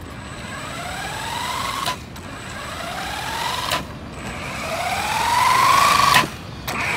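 Three rising siren whoops, each climbing in pitch and cutting off abruptly, each one louder and longer than the last, with a fourth starting near the end.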